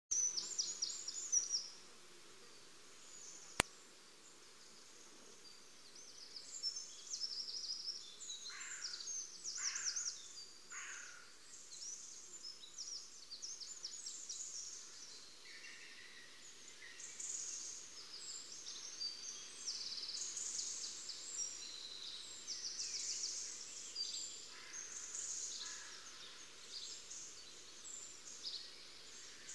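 Small songbirds chirping and twittering in quick, high-pitched phrases, over a faint steady background hiss. A single sharp click sounds about three and a half seconds in.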